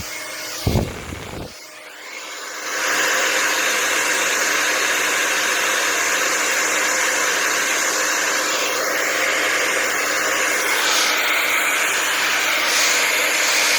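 Hand-held blow dryer fitted with a nozzle attachment, switched on about three seconds in and then running steadily with an even rush of air and a faint motor whine. Before that there is a short knock and a brief lull.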